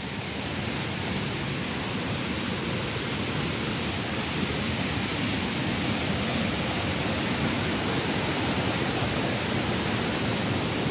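Rushing water from small river cascades and falls: a steady, even rush of noise that grows a little louder over the first couple of seconds and then holds.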